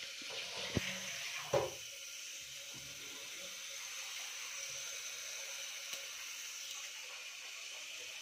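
Steady sizzle of food frying in a pressure cooker, with a metal ladle knocking once against the pot about a second in and scraping shortly after.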